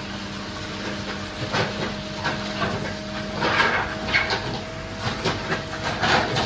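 Wet concrete being dragged and spread with a long-handled tool: irregular scraping, sloshing strokes, the strongest about three and a half seconds in and near the end. Under them a machine hums steadily.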